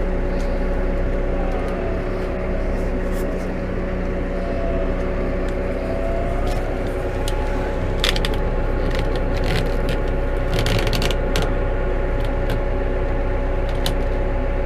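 New Holland T5 120 tractor's four-cylinder diesel engine running steadily with a whine that rises in pitch about halfway through and then holds as the tractor moves off in forward. Short clicks and rattles come in a cluster a little after halfway.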